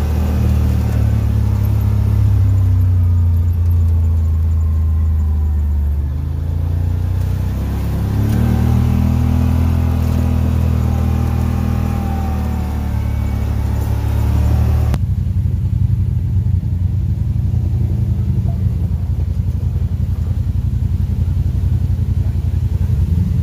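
Side-by-side UTV engine running as it drives a trail, its pitch dropping and rising with the throttle. About fifteen seconds in the sound cuts suddenly to a rougher, steadier engine and road rumble.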